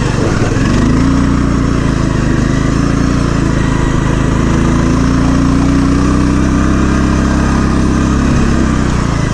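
Poulan riding lawn mower's engine running as the mower is driven across snow, its revs rising in the first second and then holding fairly steady.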